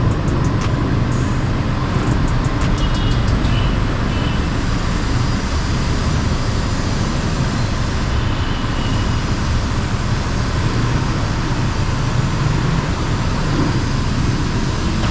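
Steady road-traffic noise, with a few quick rattling clicks in the first three seconds.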